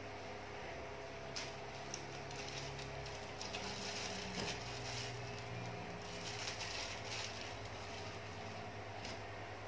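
Packaging being handled: irregular rustles and small clicks over a steady low electrical hum.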